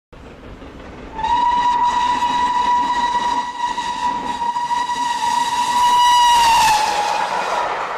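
Steam locomotive whistle giving one long blast on a single steady note, starting about a second in and lasting about five and a half seconds, sagging slightly in pitch as it closes. A rushing hiss follows near the end.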